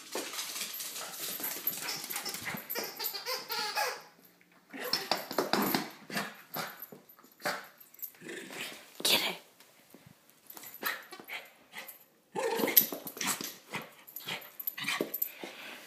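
West Highland white terrier puppy growling and thrashing a toy about in irregular bursts, with sharp slaps as the toy smacks against her face.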